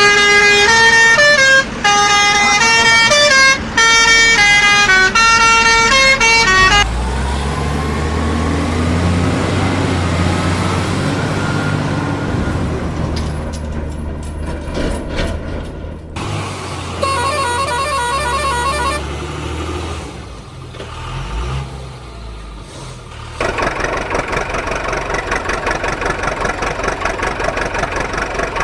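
A truck horn playing a short stepped tune, then a heavy vehicle's engine rumbling with a rising whine. Near the end come a pulsing beep and a fast, even, chugging rhythm.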